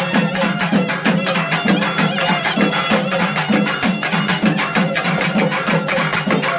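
Traditional folk music with fast, even drumming, several strokes a second, and held piping tones over it, going on steadily.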